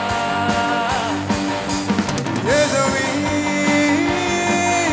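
Live rock-style band music: electric guitar, bass and drum kit playing, with voices singing.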